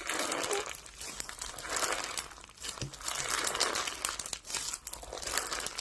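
Close crinkling and rustling handling noise in uneven bursts, with scattered sharp clicks.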